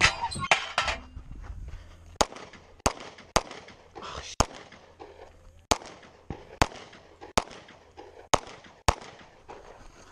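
A string of about ten pistol shots fired at irregular intervals, single shots and quick pairs, as a shooter engages a course of fire.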